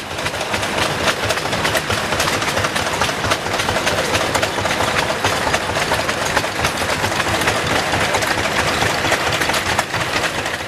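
Many vintage stationary engines running at once, a dense overlapping clatter of knocks and exhaust beats with no single engine standing out.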